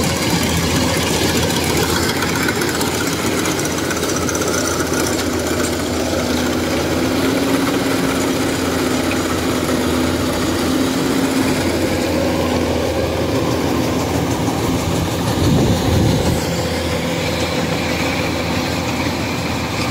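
Rice combine harvester running steadily while cutting rice, heard up close beside its cutting header: a continuous engine drone mixed with the clatter of the reel and cutting mechanism. The noise swells briefly about three-quarters of the way through.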